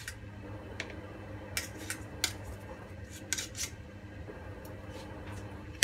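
Metal spoon and skimmer ladle stirring in a cooking pot, clinking against its side with scattered light clicks, several in quick succession about two and three seconds in.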